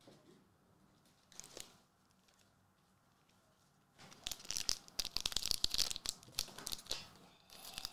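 Foil wrapper of a Magic: The Gathering Lord of the Rings collector booster pack being torn open and crinkled by hand: a dense run of crackling starting about halfway through. A brief soft rustle comes earlier, about a second and a half in.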